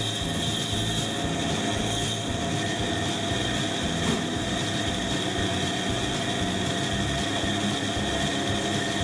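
Pégas fine-cut bandsaw running steadily, its motor and thin blade giving a constant whine over a low rumble.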